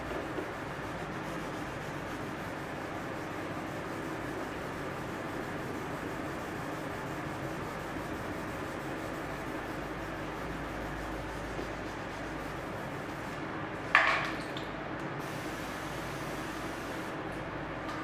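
2000-grit sandpaper being rubbed wet over a car's clear coat in steady, even strokes to level deep scratches. About fourteen seconds in, a short, louder sound stands out.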